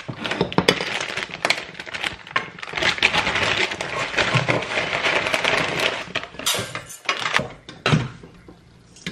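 A plastic bag of dry rice crinkling and the grains rattling and pouring, a dense crackle of tiny clicks lasting about six seconds. Then a few separate knocks as the rice cooker's pot is handled.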